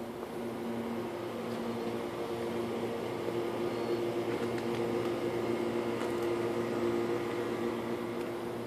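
Steady mechanical hum made of a few held tones, growing somewhat louder through the middle and easing off near the end.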